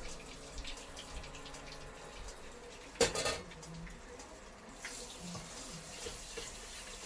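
Ghee being poured into a pan of dry-roasted gram flour, a steady liquid hiss, with one sharp clink about three seconds in and the hiss growing brighter in the last couple of seconds.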